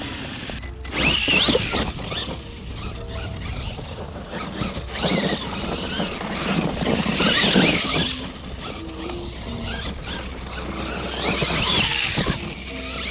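Losi LMT Gravedigger RC monster truck's brushless electric motor whining up and down in about four bursts of acceleration, with its tyres churning loose dirt and gravel.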